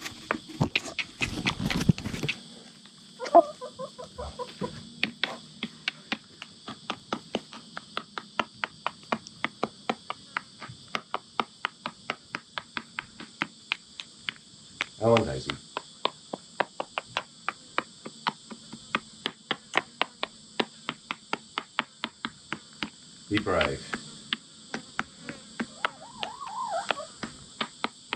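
Chickens clucking a few times over a steady, high-pitched insect drone and an even ticking about three times a second.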